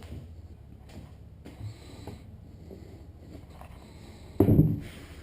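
Faint handling noises, light taps and rustles, as a freshly upholstered vinyl door card is picked up and looked over. A short voiced sound from a person comes near the end.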